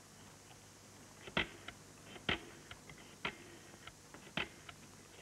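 Telephone being dialled: a string of sharp clicks about once a second, with fainter ticks between them.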